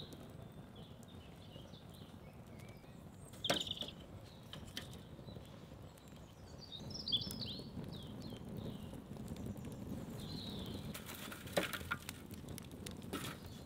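Small birds chirping and twittering over the faint rush of a wood fire burning in a fire pit, with a few sharp cracks from the burning logs.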